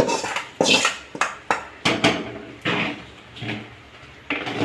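A spoon knocking and scraping against a pan in a series of sharp clinks, as a hot tempering of mustard seeds, shallots and curry leaves is emptied into a pot of chicken curry.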